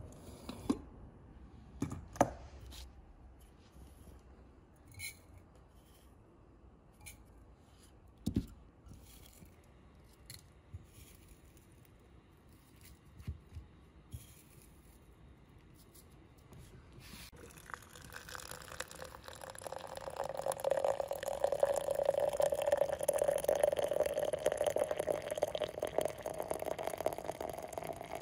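A few light clinks and knocks of glass and metal as a French press is handled. From about two-thirds of the way in, water runs from a samovar's brass tap into the glass press, the pour growing louder and its pitch rising slightly as the press fills.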